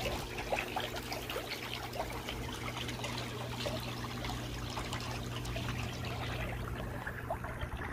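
Water trickling and lapping, a steady patter of small splashes, over a steady low hum.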